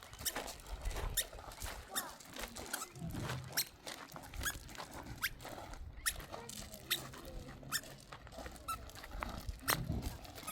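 Short, high squeaky animal calls repeating irregularly, some rising quickly in pitch, over a low rumble.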